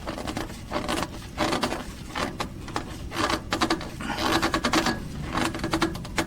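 Oil filter on the Lexus GX470 being tightened its last three-quarter turn after seating: about six short rasping strokes, roughly one a second.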